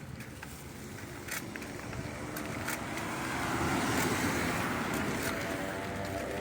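First Smitt bicycle's gear drivetrain being ridden, giving a few sharp clicks over a rushing noise that swells in the middle, with wind on the microphone. The owner says this noise appears only when shifting, in second gear.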